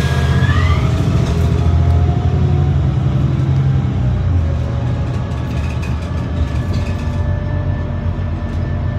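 City bus engine running with a steady low rumble. A whine rises briefly about half a second in, and the rumble eases somewhat about halfway through.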